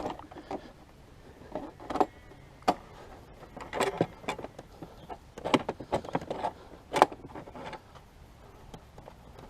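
Plastic rear body panel of a 2012 Can-Am Spyder RT Limited being worked into place by hand: irregular clicks and knocks, about half a dozen sharper ones spread through, with light rubbing between.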